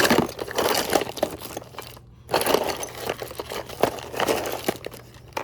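Hands rummaging through a junk box of odds and ends: irregular clattering, clicking and crinkling of loose items, with a brief pause about two seconds in.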